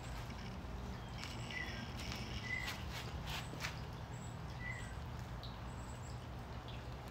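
Back-yard ambience: birds chirping in short high notes, with a few soft shoe scuffs on stone paving around the middle, over a faint steady low rumble.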